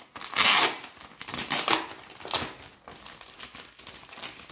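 Thin plastic anti-static bag crinkling and rustling as a router is slid out of it: several loud crackly bursts in the first two and a half seconds, then fainter crackling.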